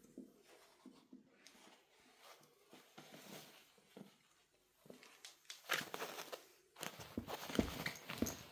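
A cat playing with toys: scattered soft taps, scuffles and rustles, sparse at first and busier over the last few seconds.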